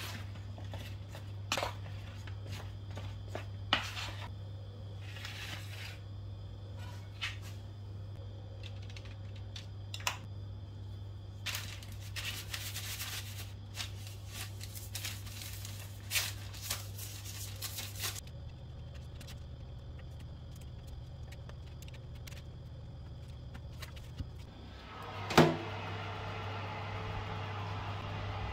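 Kitchen handling sounds over a steady low hum: scattered taps and clicks of a wooden spatula tossing potato strips in a plastic plate, then a stretch of parchment paper rustling under a pastry brush. Near the end comes a loud clunk from the oven door.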